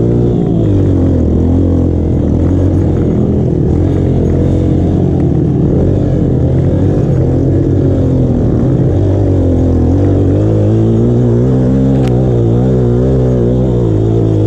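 Dirt bike engine running on a rough trail, its pitch rising and falling as the throttle is opened and eased off.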